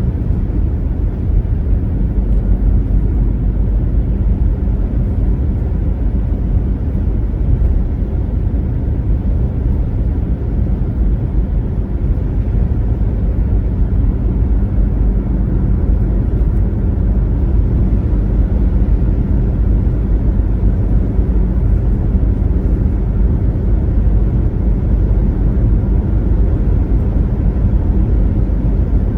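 Car driving at highway speed: a steady, even rumble of tyre and road noise with no changes.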